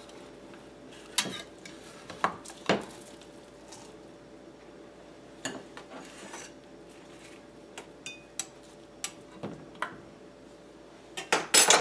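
A metal utensil clinking and scraping against a baking dish as a portion of chicken pot pie is cut and scooped out. There are scattered clinks throughout and a louder cluster of clatter near the end.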